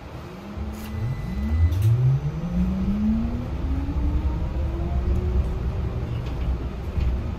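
Yutong E12 battery-electric bus's traction motor whining, rising smoothly in pitch as the bus pulls away and gathers speed, then levelling off, over a steady low road rumble heard inside the cabin.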